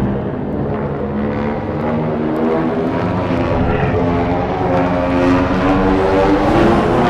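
Fan-made Godzilla atomic breath sound effect: a dense, droning hum with a hiss above it, slowly rising in pitch and growing louder as it builds.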